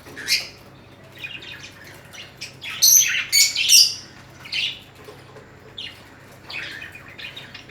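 Small caged parrots, budgerigars and lovebirds, chirping and squawking in scattered short calls, with a loud run of sharp calls about three to four seconds in.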